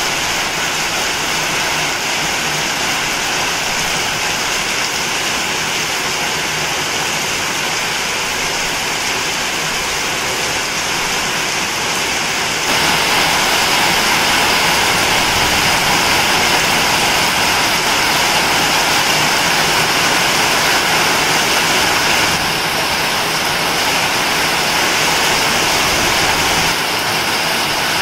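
Heavy rain pouring, a loud steady hiss with no rhythm. Its level jumps abruptly about 13 s, 22 s and 27 s in.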